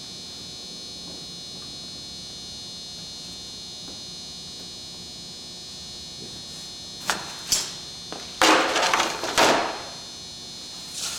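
A steady high-pitched electrical hum, then from about seven seconds in a few short scraping, rustling handling noises, the loudest lasting about a second and a half.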